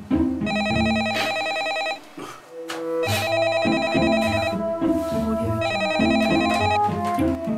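Desk telephone ringing three times with an electronic trilling ring, each ring lasting about a second and a half with a short gap between, over background music.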